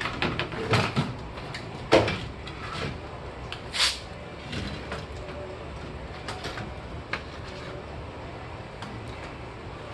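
Chevy Volt engine radiator knocking and scraping against the surrounding brackets and plastic as it is worked up out of the car's front end: a few clunks early, the loudest about two seconds in, a sharp scrape near four seconds, then lighter rattles.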